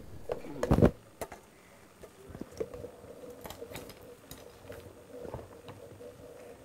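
Faint, scattered clicks and light rustling of equipment and cables being handled, over a faint steady hum.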